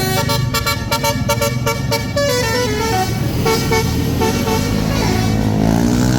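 Tour bus "basuri" telolet musical air horn playing a quick tune of stepped notes, with the bus engine running underneath. Near the end a tone slides upward.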